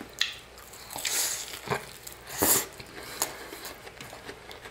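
Biting into a crispy buttermilk fried chicken drumstick and chewing: a few crackling crunches of the crust, the loudest about two and a half seconds in.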